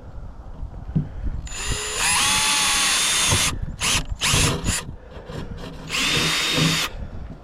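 Power drill drilling holes. A run of a second or two in which the motor spins up and rises in pitch, then a few short trigger bursts, then another short run near the end.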